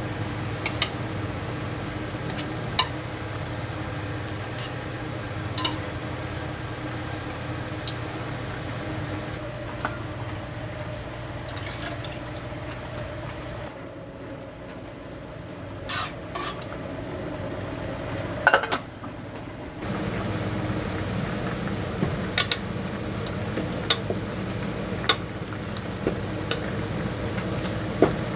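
Pork-wrapped eggplant rolls sizzling steadily in a frying pan, with a sharp click of a utensil against the pan every few seconds. About halfway through, a quieter stretch has metal tongs clinking in a saucepan of liquid. The sizzling then comes back louder as the rolls are stirred in sauce.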